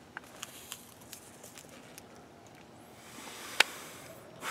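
Faint small handling sounds: scattered light clicks, then a soft hiss near the end with one sharp click in it.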